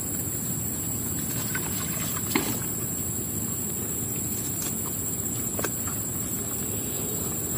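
Fishing net being hauled by hand out of a stream: a few light clicks of the net and water, the sharpest about two and a half seconds in. Under them runs a steady low rumble and a steady high hiss.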